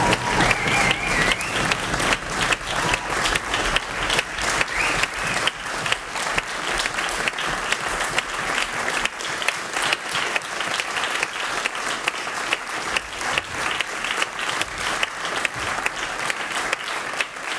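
Audience applauding after a piano concerto: dense, steady clapping that slowly thins toward the end.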